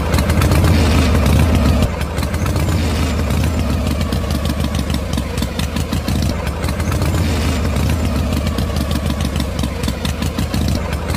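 Tractor engine running steadily with a low chugging.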